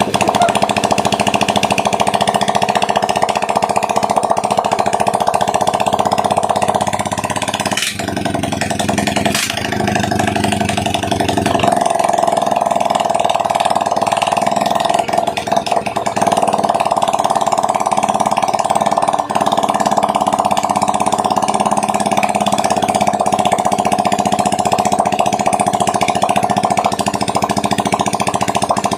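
Honda XRM125's single-cylinder four-stroke engine running steadily on a test run just after a top overhaul. The sound breaks off briefly about eight seconds in and changes a few seconds later.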